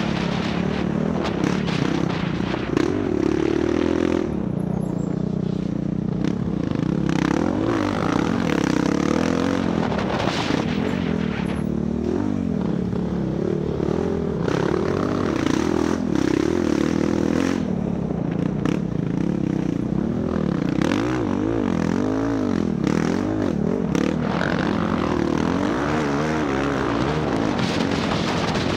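Motocross dirt bike engine revving up and down over and over as the throttle is worked, with frequent short knocks and rattles from the bike over rough ground.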